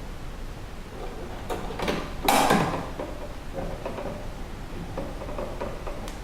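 Handling noise from connecting electrical wires in a switch box: small clicks and ticks, with one louder, brief scraping rustle about two seconds in.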